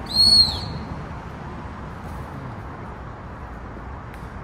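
One short, loud whistle blast about half a second long, its pitch rising slightly and then falling away, typical of a gundog whistle. It sounds over a low, steady background rumble.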